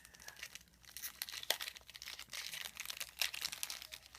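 Stiff glossy Topps Chrome trading cards handled and flipped through by hand: a run of papery rustles and small sharp clicks as the cards slide over one another.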